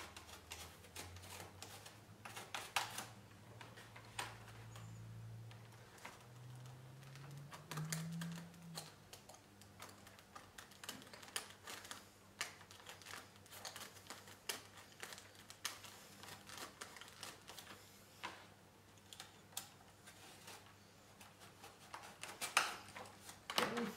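Faint, scattered clicks, ticks and rustles of hands working on a foam model aeroplane: a hobby knife cutting a slot in the foam control surface and hinges being test-fitted.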